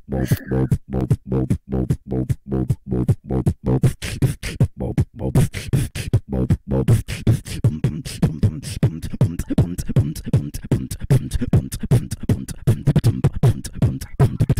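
Beatboxing: a steady run of sharp vocal kick and snare strokes over a low hummed bass, picking up to a faster pattern about halfway through.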